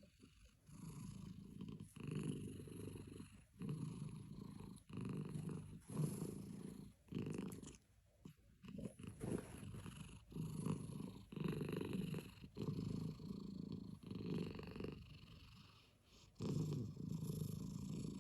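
A domestic cat purring, the purr swelling and pausing with each breath, roughly one swell every second and a half.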